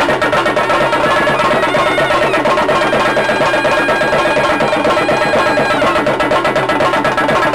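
Theyyam ritual drumming: chenda drums beaten in fast continuous strokes with cymbals. Over them a wind instrument holds long high notes, shifting pitch a few times.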